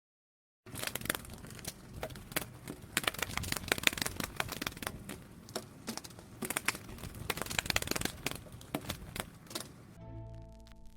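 Dense, irregular crinkling and crackling, made of many sharp clicks. Near the end it gives way to a few steady held tones.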